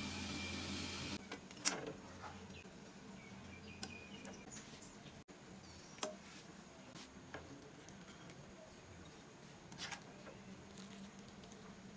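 A stainless slotted spoon clicks now and then against a wok of broth as the food is stirred, over a faint, steady low hum. A short burst of hiss comes in the first second.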